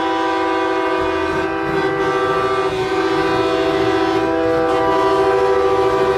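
Truck air horns blowing one long, steady multi-note chord, with a low engine rumble underneath.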